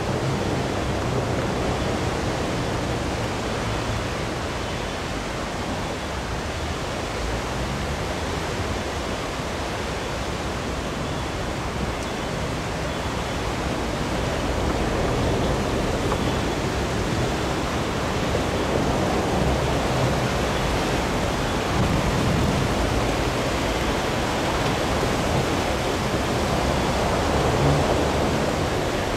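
Steady rushing noise of a river in flood, running fast and high beneath a bridge, with an uneven low rumble underneath.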